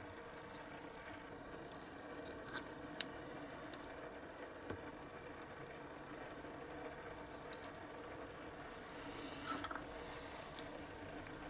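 Faint steady hum with a few light clicks and taps scattered through it, and a short cluster of small clicks near the end.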